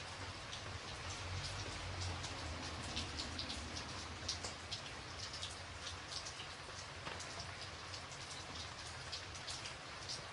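Steady rain, with many separate drops striking a surface heard as sharp ticks over an even hiss.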